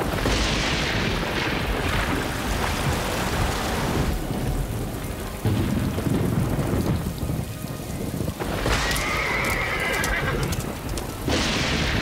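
Storm sound effects: heavy rain with surges of thunder near the start, about five seconds in and near the end. A horse whinnies once about nine seconds in.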